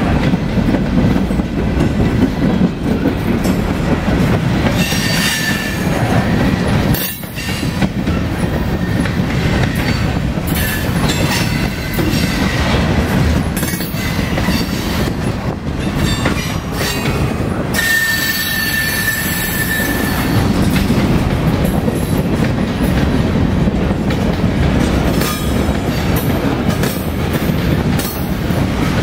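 Freight train of covered hoppers and tank cars rolling past: a steady, loud rumble of steel wheels on rail, with a brief high-pitched wheel squeal twice, around six seconds in and again near twenty seconds.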